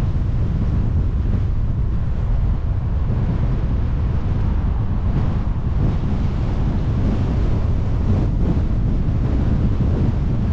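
Steady wind noise on the microphone over the low rumble of a car driving along the road.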